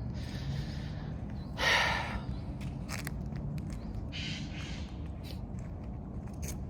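A crow caws once, harsh and loud, about a second and a half in, over soft footsteps.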